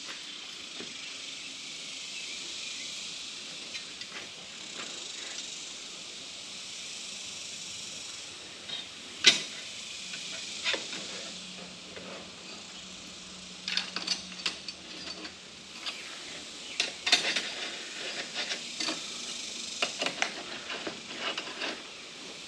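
Small metal clicks and clinks of bolts, washers and a metal luggage-rack bracket being handled and fitted onto a motorcycle's rear frame, one sharp click about nine seconds in and busier clusters of clicks in the second half, over a steady background hiss.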